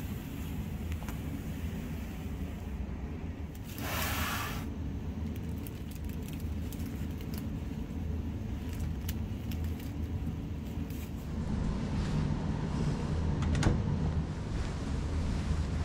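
A mesh tote bag of towels and a locker being handled: a short rustle about four seconds in, then light clicks and knocks, over a steady low rumble.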